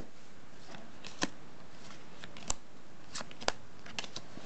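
Yu-Gi-Oh trading cards being handled and slid against one another, with a handful of sharp, light clicks and snaps at uneven intervals as cards are flipped and moved through the hand.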